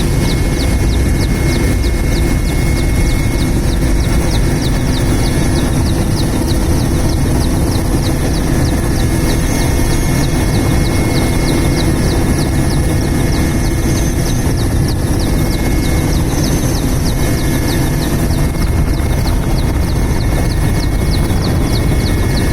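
Helicopter running steadily at close range, a loud, constant engine and rotor noise with a fast, even beat of ticks over it.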